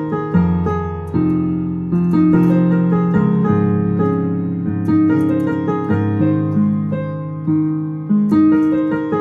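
Piano playing a slow passage: low held bass notes under chords, each note struck and then fading before the next comes in.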